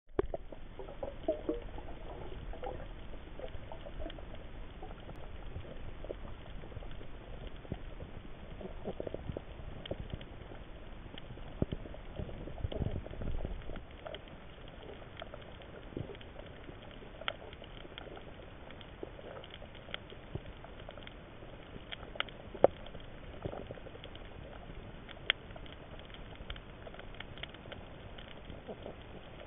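Underwater reef sound recorded from a moving camera: a steady crackle of scattered clicks and pops, with a few sharper snaps, over a low rumble of water movement that is stronger for the first half and eases about halfway through.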